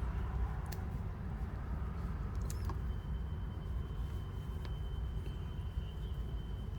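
Steady low hum of a car cabin with the car switched on, with a few faint light clicks from a cable and adapter being handled. A faint steady high whine comes in about three seconds in.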